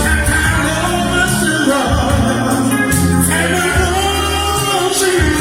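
Live band music with singing over held bass notes that change about once a second.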